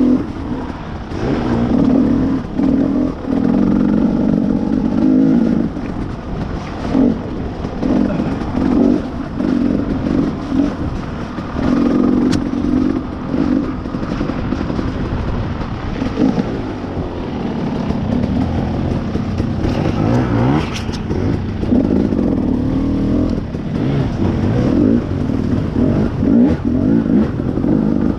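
Two-stroke dirt bike engine revving up and down over and over as it is ridden through a muddy trail, with a few short knocks from the bike over rough ground.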